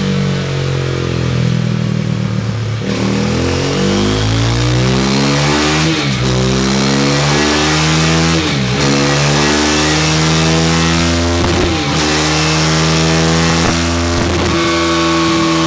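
KTM 390 Duke's single-cylinder engine, breathing through a Scorpion Serket Taper slip-on exhaust, accelerating hard on a rolling-road dyno. The revs climb and drop back four times as it works up through the gears.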